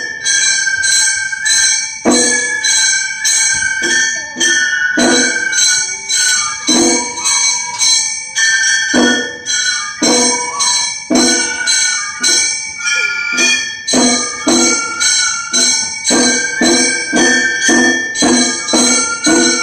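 Gion bayashi festival music being practised: small hand-held brass gongs (kane) struck in a quick, steady clanging rhythm, with a bamboo transverse flute (fue) playing a high melody over them.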